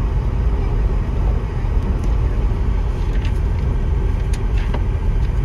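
Car driving on a gravel road, heard from inside the cabin: a steady low rumble of tyres and engine, with a few sharp ticks scattered through it.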